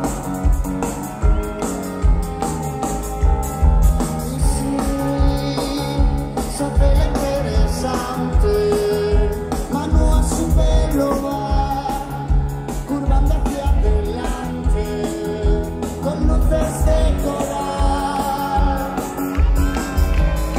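Live band playing loud on stage, electric guitar, bass and drums over a steady driving beat, with a voice singing, heard from within the audience.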